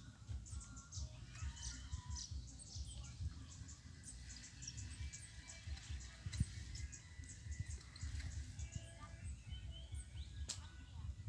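Small birds chirping and twittering in many short, high calls, over a low fluctuating rumble of outdoor noise.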